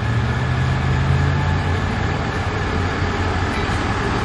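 A vehicle engine running steadily, heard as a low, even hum.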